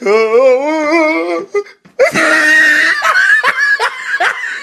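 A person's drawn-out vocal wail that wavers up and down in pitch for about a second and a half. After a short pause comes loud laughter in repeated bursts.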